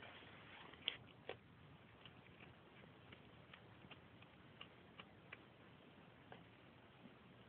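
A small cat chewing rabbit bones: faint, irregular crunching clicks, two louder cracks about a second in, then sparser small crunches.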